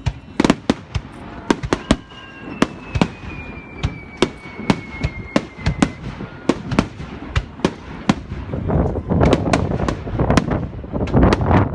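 Aerial fireworks bursting: a quick series of sharp bangs, with a long whistle falling slowly in pitch from about two seconds in. Near the end they thicken into a dense barrage of overlapping bangs and rumble.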